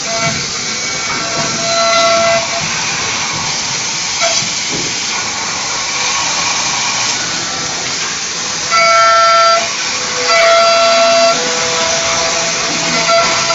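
Three-axis CNC deburring machine running on die-cast automotive parts: a steady hiss, with a pitched whine from the spindle and tool that comes and goes in short stretches, loudest about nine seconds in.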